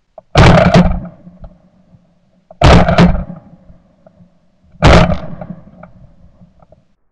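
Three shotgun shots about two seconds apart, each a sharp blast that dies away over about a second.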